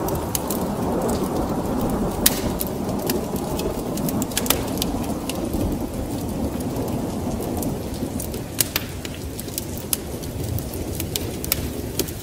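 Wood fire crackling with scattered sharp pops, over steady rain and a low rolling rumble of thunder that eases slightly in the second half.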